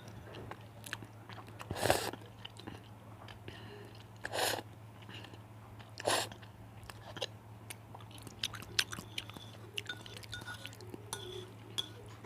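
Close-miked chewing of spicy cheese noodles: wet smacking and small crackling mouth sounds, with three louder brief noisy bursts about two, four and a half and six seconds in. A faint steady low hum runs beneath.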